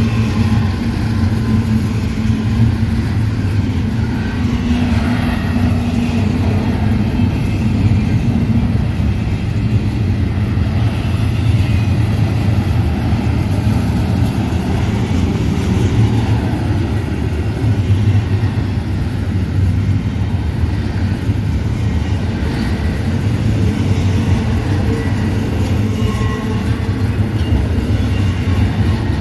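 Double-stack intermodal container train rolling past: steady rumble and clatter of the well cars' wheels on the rails.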